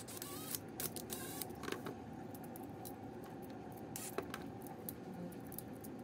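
Faint clicks and scrapes of copper house wires being handled and worked into the line terminals of a GFCI outlet, with a few sharp ticks in the first two seconds and one more about four seconds in.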